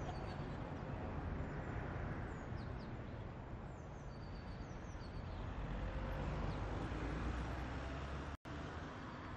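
Outdoor town ambience: a steady low hum of distant traffic with a few faint bird chirps. The sound briefly cuts out near the end.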